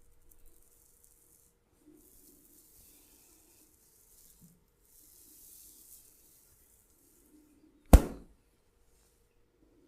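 Massage hands rubbing over skin, two soft brushing swishes, then one loud, sharp hit near the end, as of a slap or a joint being cracked during the massage.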